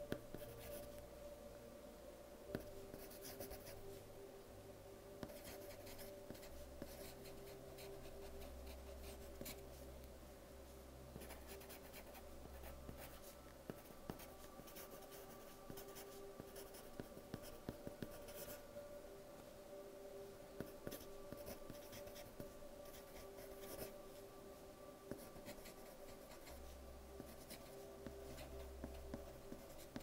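A soft lead pencil writing on paper: quiet, scratchy strokes in irregular runs, with small taps between them. Faint steady background tones sit underneath.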